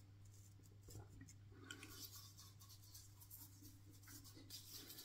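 Near silence: a faint steady hum, with faint soft rubbing of fingers over a lathered, stubbly cheek.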